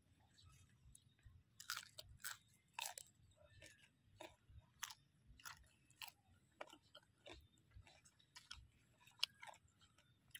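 Close-up crunching and chewing of crisp raw produce: irregular sharp crunches starting about a second and a half in and repeating, several in some seconds.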